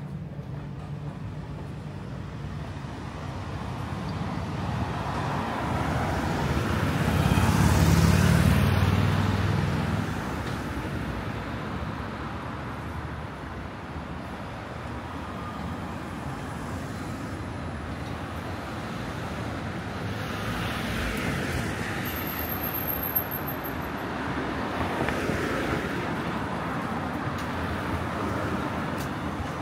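Road traffic going by on a busy street. One vehicle with a deep engine note passes close and is loudest about eight seconds in. More cars pass later with a rushing tyre sound.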